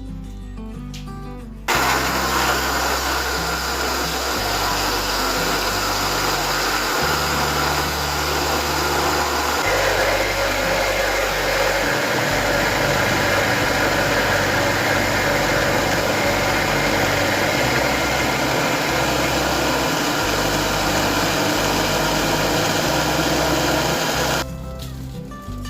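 Countertop blender running on cake batter of banana and oats. It switches on abruptly, runs steadily for about twenty-two seconds with a change in its sound about ten seconds in, and stops abruptly near the end. Background music plays underneath.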